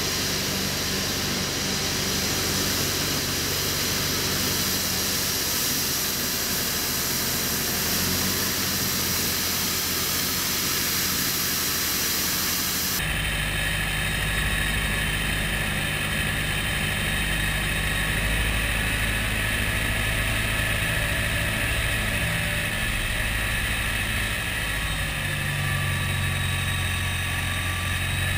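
Valtra N142D tractor engine running steadily, with the hiss of the STARK rotary broom spinning and sweeping grit off the road. About 13 seconds in the sound switches abruptly to a camera on the tractor itself, where the engine's low drone is much louder.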